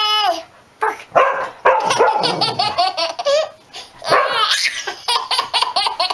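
A baby laughing hard in quick, repeated bursts, after one long high-pitched call right at the start.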